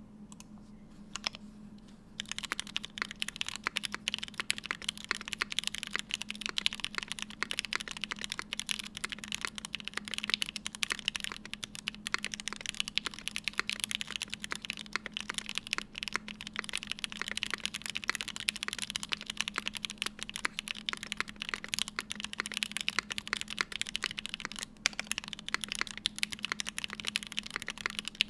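Vega mechanical keyboard with stock Gateron Oil King linear switches, an aluminium plate and GMK keycaps, no foam inside, being typed on. A few single keystrokes at first, then fast, continuous typing from about two seconds in.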